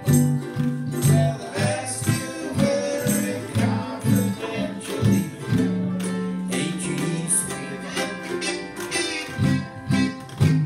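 Live acoustic band music: a ukulele and guitar strummed in a steady rhythm over washboard percussion, with one long held note from about halfway through.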